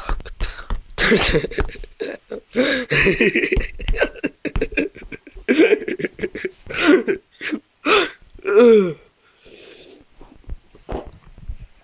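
A young child's wordless vocal sounds, short squeals and babble with one falling cry near the end, among rapid clicks and knocks of a phone being handled close to the microphone.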